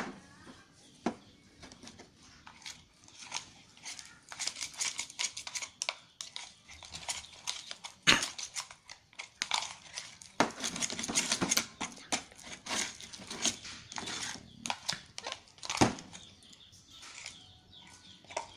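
Homemade glue slime being stirred in a bowl with a utensil: irregular sticky squelching and crackling, with scattered clicks and a few sharper knocks of the utensil against the bowl.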